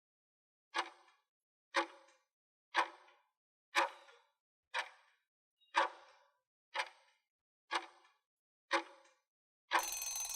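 Countdown timer sound effect ticking about once a second, ten ticks in all, ending in a short hissing burst with a thin high tone near the end.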